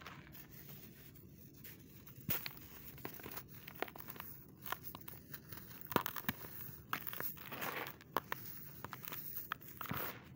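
Hands crushing and crumbling dry sand clumps: irregular gritty crunches and crackles, with loose dry sand pouring through the fingers. The loudest crunches come about six seconds in and near the end.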